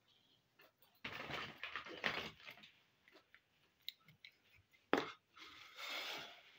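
Small plastic toy kitchen pieces being handled: a rustling, clattering stretch of about a second and a half, a sharp click of a plastic piece set down on the table about five seconds in, then a brief softer rustle.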